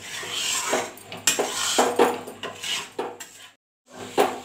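A spatula scraping and stirring through potato sabzi in a metal kadhai, in repeated strokes about twice a second. The sound cuts out completely for a moment near the end.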